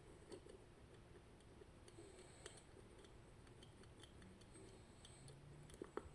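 Very faint, scattered metallic ticks of picking tools working an Elzett M magnetic rotor lock, with two sharper clicks near the end as the lock gives and opens.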